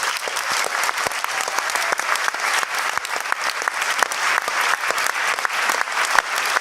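Loud, steady audience applause: many people clapping at once.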